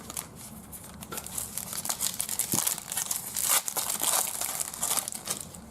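Plastic trading-card pack wrapper being torn open and crinkled in the hands, a dense run of crackling that eases off near the end.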